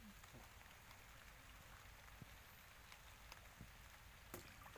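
Faint rain falling on river water: a soft, even hiss with a few scattered light ticks of drops.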